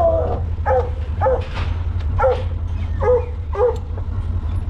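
Coonhounds barking in a steady run of short, repeated barks, about two a second, over a steady low rumble.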